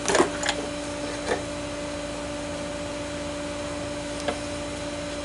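Clamps and wood being handled while clamping a glued bench joint: a cluster of sharp knocks and clicks at the start, another about a second later, and a single click near the end. A steady machine hum runs underneath throughout.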